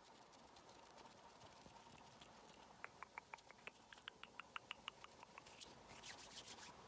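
Faint ASMR trigger sounds: a quick run of light taps or clicks, about five a second, over soft hiss, with a few sharper clicks near the end.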